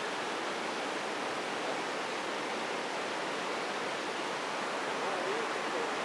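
Steady rush of river water pouring over smooth rock slabs in a small waterfall and rapids, an even, unbroken hiss of flowing water.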